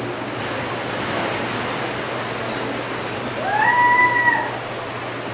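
Gentle surf washing steadily on the beach. About three and a half seconds in, a single call of about a second rises and then holds its pitch.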